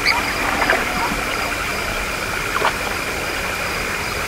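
Steady outdoor ambience: an even rushing noise with a constant high, thin drone running through it, and a few brief faint calls, two near the start and one past the halfway point.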